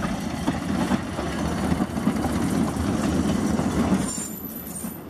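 Narrow-gauge diesel locomotive running as it hauls open passenger cars past, with the wheels rolling on the track. The sound eases about four seconds in as the locomotive moves away, leaving faint high squealing.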